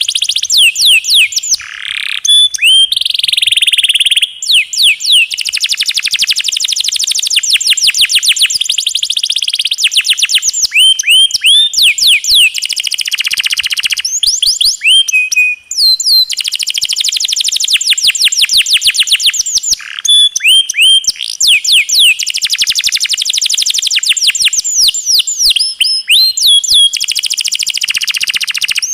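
Domestic canary singing a long, fast rolling song: rapid trills strung together with quick downward-sweeping notes and a few held whistled tones, broken by short pauses.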